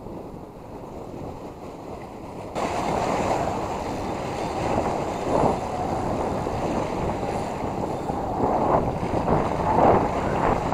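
Surf washing and breaking against jetty boulders, with wind on the microphone. The wash gets suddenly louder about two and a half seconds in, then swells several times as waves hit the rocks.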